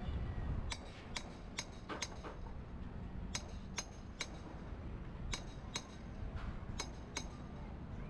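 Sharp metallic clinks of metal striking metal, in groups of three or four about 0.4 s apart, each with a brief ringing tail, over a steady low rumble.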